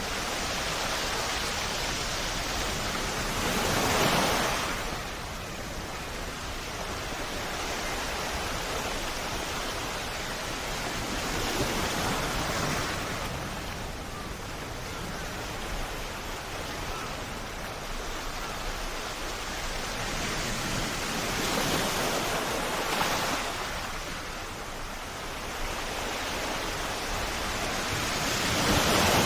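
Sea waves at a rocky coast, a steady rush of surf that swells four times as waves break.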